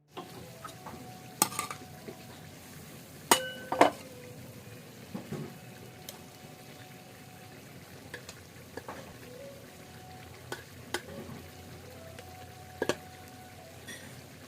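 A metal utensil stirring food in a cooking pan, clanking and scraping against the metal now and then with short ringing knocks. Under it runs a steady faint sizzle of food frying.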